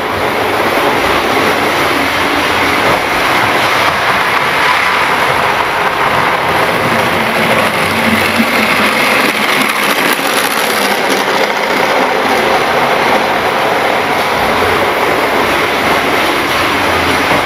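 Model train running on its track close to the microphone: a steady whirring rush of its electric motor and wheels, a little stronger as the locomotive passes about eight seconds in.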